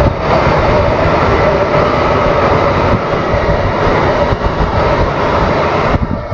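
White storks clattering their bills, a loud, rapid rattling that runs on and eases near the end.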